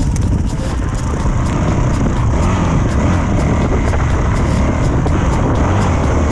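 A 450cc four-stroke dirt bike engine running steadily as the bike rides across sand, a constant low drone with no change in pace.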